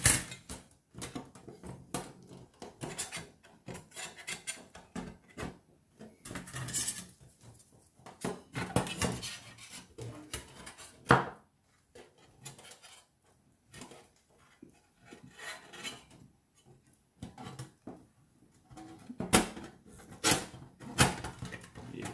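Thin stainless-steel panels of a Lixada folding camping firebox clinking, scraping and clicking together as they are handled and slotted into place, in irregular bursts with a few sharper metal knocks.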